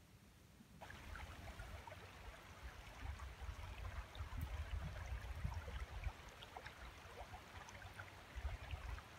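A shallow creek trickling and babbling, which starts abruptly about a second in, over a low rumble.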